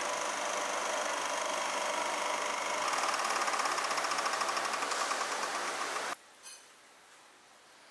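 A machine running with a steady noise and a few high tones, joined about three seconds in by a fast, even rattle. It cuts off abruptly about six seconds in.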